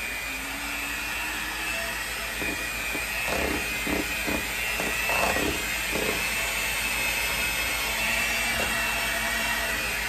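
Electric mixer running steadily with a constant whine, beating cream cheese cheesecake batter.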